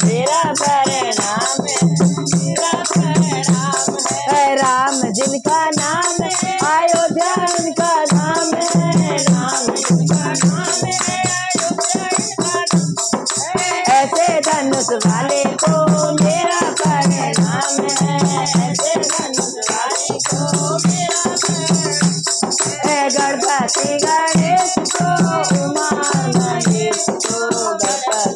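Devotional bhajan singing, a boy's voice joined by women's voices, over a dholak drum beating a steady rhythm. Small hand cymbals (manjira) and a clapper jingle without a break.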